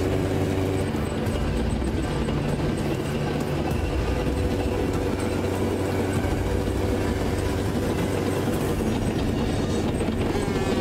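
Tanks' engines and tracks running steadily, a dense mechanical noise with a low hum and track clatter, as a motorcycle weaves among them.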